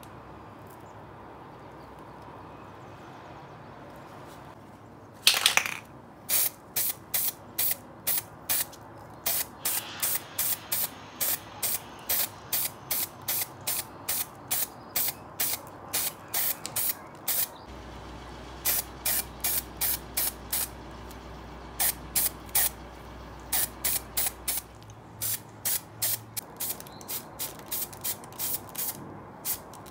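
Aerosol spray paint can fired in quick short bursts, about two a second, starting about five seconds in with one longer, louder burst, with a few brief pauses along the way.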